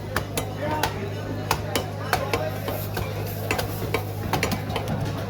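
Irregular sharp knocks of a cutting blade on a board as a large ayer catfish is cut, several a second, over a steady low hum and faint background voices.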